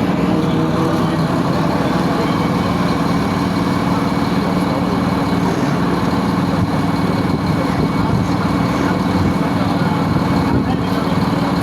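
Large marine diesel engine running steadily, a constant, even rumble.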